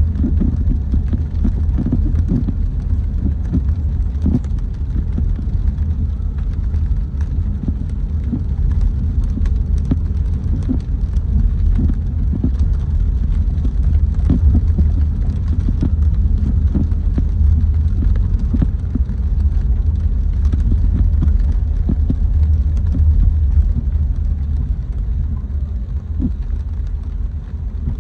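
A car driving on wet city streets in the rain: a steady low rumble of engine and tyres, with scattered ticks of raindrops throughout.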